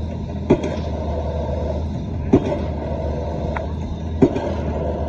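Drop hammer striking a square concrete pile three times, about two seconds apart, over the steady running of the excavator's engine.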